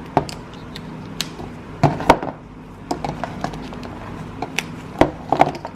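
Plastic Faber-Castell Connector felt-tip pens being handled and clicked together, caps snapping onto pen ends: a scatter of short, sharp clicks and taps, several in quick succession about two seconds in and again near the end.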